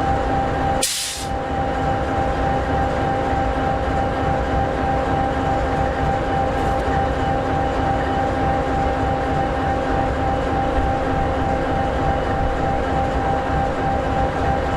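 EMD 16-710G3B V16 two-stroke diesel engine of an SD60E locomotive idling steadily: a continuous low rumble with a steady hum of several tones. A brief click and dip in level about a second in.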